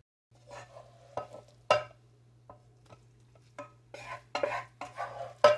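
Spoon scraping and clinking in a bowl as food is scooped out, with a few sharp clinks, the loudest near the end.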